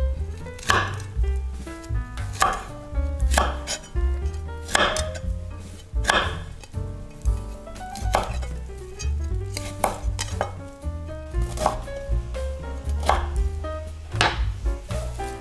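A knife chopping vegetables on a cutting board, with sharp irregular strokes about once a second, over background music with a steady bass.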